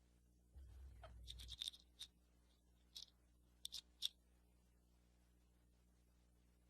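A faint low rumble, then a handful of small dry clicks and scratches spread over a few seconds.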